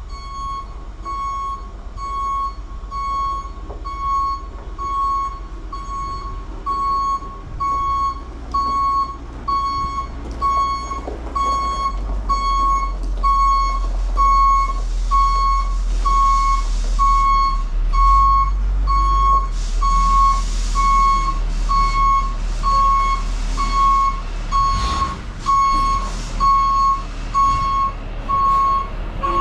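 A vehicle's reversing alarm beeping steadily, about one beep a second, over an idling diesel engine. Bursts of hiss come in around the middle.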